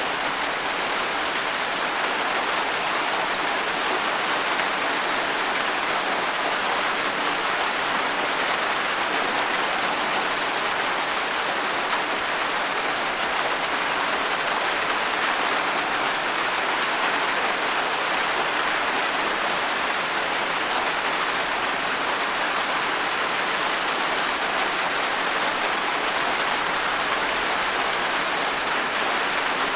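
Steady rain falling on a surface, a continuous even hiss of drops with no breaks or changes in strength.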